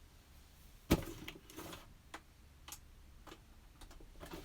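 Handling noise as a puzzle is picked up and moved: one sharp knock about a second in, then a few fainter, scattered clicks.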